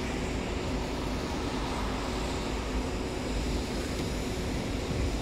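Steady rushing wind noise from a thunderstorm's gusty winds, with a faint steady hum beneath it.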